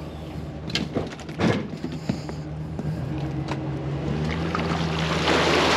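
Engine idling steadily at low speed during slow maneuvering, with a few sharp knocks in the first couple of seconds. A hissing rush like running water grows louder toward the end.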